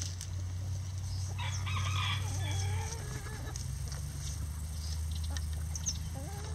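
A rooster crowing once, starting about a second and a half in and lasting about a second and a half, followed by a few soft clucks from the flock, over a steady low hum.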